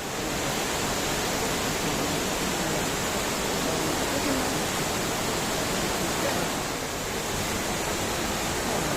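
Waterfall: a steady, even rush of falling water, with the flow running low.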